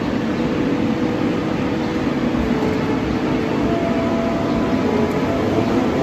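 Feed mixer wagon running as it discharges feed along the feed alley: a steady mechanical drone of its drive and augers, with a faint steady hum.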